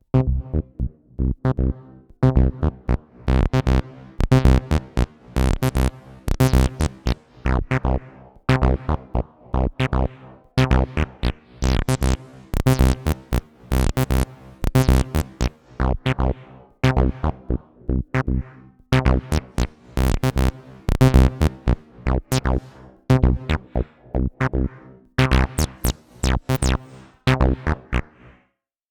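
Behringer TD-3-MO analog bass synthesizer playing a sequenced acid bassline: a repeating run of short, staccato notes whose brightness swells and falls as the resonant filter opens and closes. The pattern stops shortly before the end.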